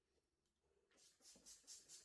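Soft rhythmic scrubbing strokes, about four a second, starting about halfway in.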